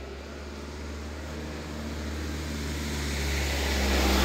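A car approaching and passing close by, its engine and tyre noise growing steadily louder towards the end.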